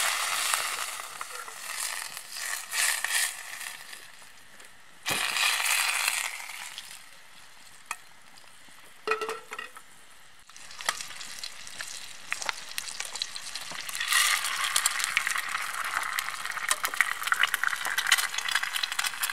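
Butter sizzling in a small frying pan, coming and going in spells. About two-thirds of the way through, once an egg is in the pan, the sizzle turns louder and crackly with many small pops.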